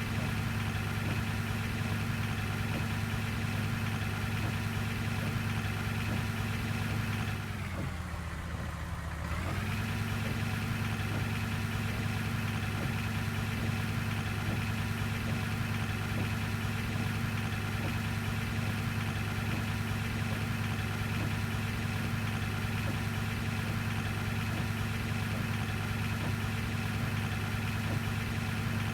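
Bus diesel engine idling steadily, with a brief dip in pitch and level about eight seconds in before it settles back to the same idle.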